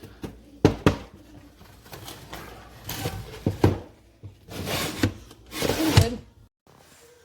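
Bamboo bread box being handled: a few sharp wooden knocks, then longer sliding, rattling clatter, cutting off suddenly near the end.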